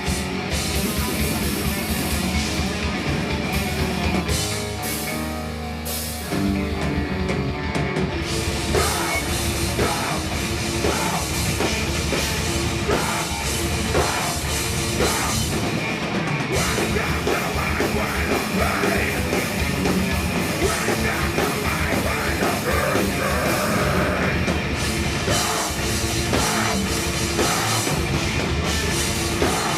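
Thrash metal band playing live: distorted guitars, bass and drum kit going at full volume. The low end drops away for a moment about five seconds in, then the full band comes back in hard.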